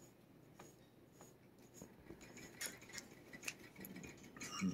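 Faint scattered clicks and light taps of small hard objects, growing a little busier in the second half, with a short louder knock near the end.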